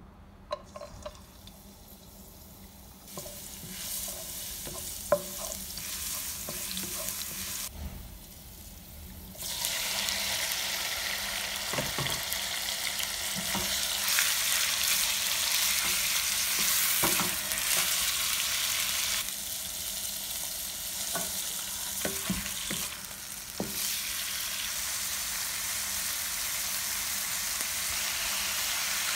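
Squid and shrimp sizzling in hot oil in a wok, stirred with a wooden spatula that scrapes and knocks against the pan. A few light clicks come before the sizzle starts about three seconds in, and the frying grows loud about ten seconds in.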